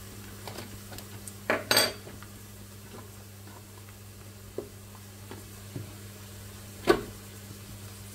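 Cooking utensils clinking and knocking against a pot: a few light ticks, a louder clatter about one and a half to two seconds in, and a single sharp knock near the end, over a steady low hum.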